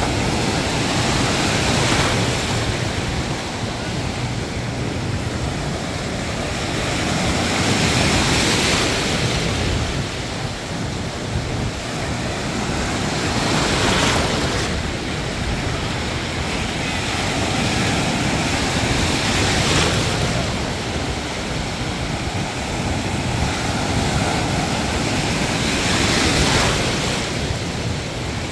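Ocean surf: waves breaking and washing in over a continuous rush of water, the sound swelling with each wave about every six seconds.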